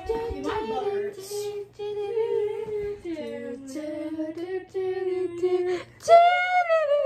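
A girl's voice singing a tune in held notes that step up and down, ending on a long, louder held note about six seconds in.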